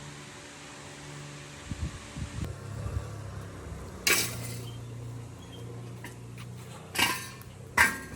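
Metal parts or tools clinking and knocking against each other, with three sharp metallic strikes in the second half, over a steady low hum.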